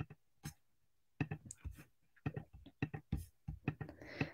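Faint, irregular clicking from working a computer's mouse and keyboard, about a dozen short clicks at uneven spacing.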